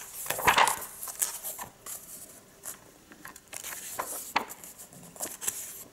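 Pages of a comic-book trade paperback being turned. A louder paper rustle comes about half a second in, then scattered short swishes and flicks of paper.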